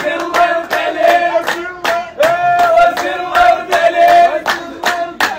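Live wedding music: several voices singing a chant in long held notes over steady percussion beats, about three a second.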